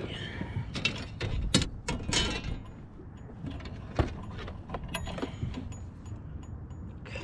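Irregular knocks, clicks and clatter as a freshly caught northern pike is handled in the bottom of a boat, with one sharp knock about four seconds in, over a steady low rumble.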